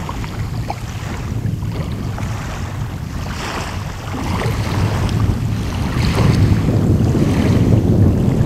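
Wind buffeting the microphone, a loud low rumbling noise with gusty surges that grows stronger about halfway through.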